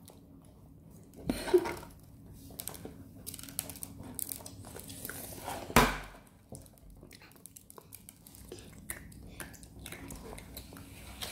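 Children eating sprinkles off a plastic plate: many small clicks and crunches from fingers and chewing, with one sharp knock about six seconds in.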